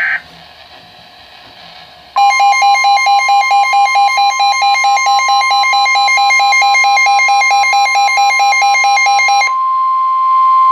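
Emergency Alert System alert tones. A short end of the data-burst screech comes first, then after a pause a steady high attention tone sounds with a fast pulsing electronic beep over it. Near the end the beeping stops and the steady tone holds on alone.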